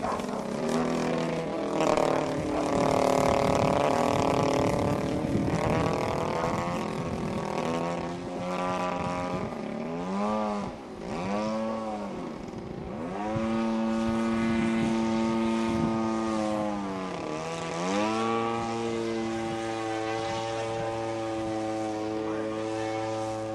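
Yak 54 aerobatic plane flying manoeuvres overhead, its engine and propeller droning with a pitch that keeps rising and falling as the power and attitude change. There are two sharp dips and swoops in pitch about ten seconds in and again a few seconds later, after which the note holds steadier.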